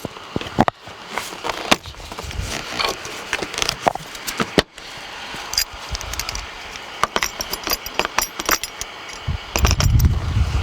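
Hands handling and fitting small plastic trim clips and fasteners, with scattered clicks, light knocks and scraping. A low rumble comes in near the end.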